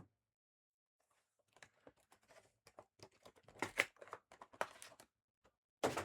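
Trading cards and their plastic holders being handled and flipped through: a quick run of small clicks and rustles, with one louder rustle near the end.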